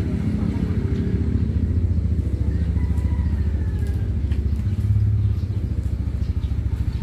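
An engine idling steadily with a low, even putter, swelling briefly about five seconds in.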